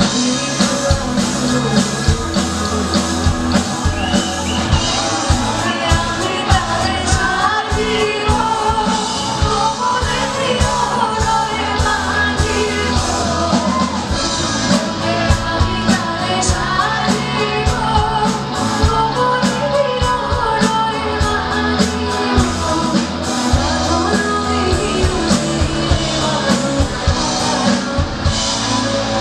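Live rock band playing through a PA system, with a female singer leading over electric guitar and drum kit, heard from among the audience in a hall.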